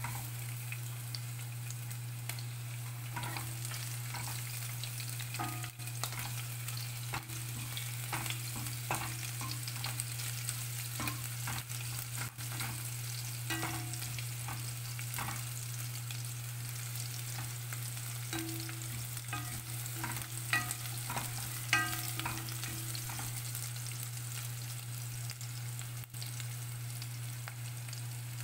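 Pork pieces sizzling steadily as they fry in oil in a pot, stirred now and then with a slotted spatula that scrapes the pot bottom in short strokes, most of them between about 3 and 23 seconds in. A steady low hum runs underneath.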